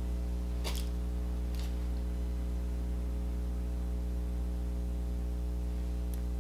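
A steady low hum with several evenly spaced tones and no change in level, with two brief soft ticks in the first two seconds.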